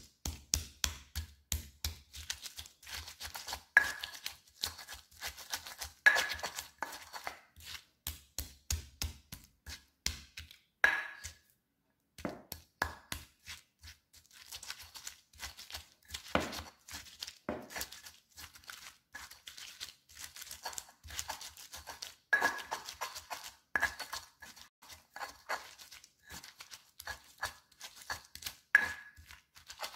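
Stone pestle knocking and grinding against a stone mortar (cobek and ulekan), crushing shallots and garlic with salt into a spice paste: a rapid, irregular run of knocks and scrapes, with a brief pause a little before halfway.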